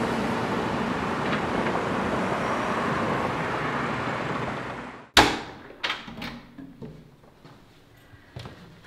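Steady rush of passing road traffic that fades out about five seconds in. Then a sharp, loud clack, followed by several lighter clicks and knocks as a flat's front door is unlocked and opened.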